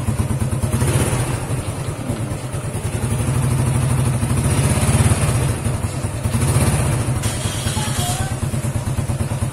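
Honda Revo's single-cylinder four-stroke engine running through a newly fitted aftermarket racing exhaust, with a rapid low exhaust pulse. It is revved gently a couple of times in the middle.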